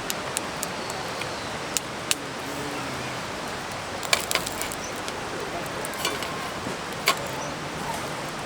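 Steady rushing of a river, with scattered sharp clicks and taps over it, the loudest about four and seven seconds in.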